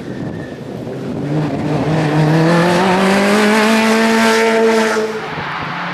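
Rally car driving past at speed, its engine note climbing steadily under acceleration, then cutting back abruptly about five seconds in as the driver lifts off or changes gear.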